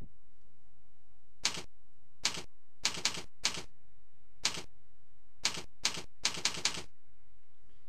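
Computer keyboard keys being typed one at a time: about a dozen sharp clacks at an uneven pace. They start about a second and a half in and bunch closer together near the end.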